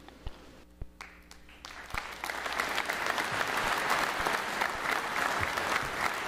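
Audience applauding: a few scattered claps at first, then full applause from about two seconds in, holding steady.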